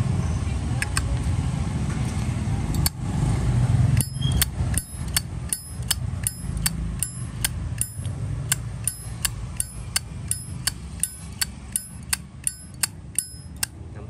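Zippo lighter's hinged metal lid flipped open and snapped shut over and over, a quick run of sharp metallic clinks with a bright ringing tone, two to three a second, starting about four seconds in, over a low steady rumble of traffic.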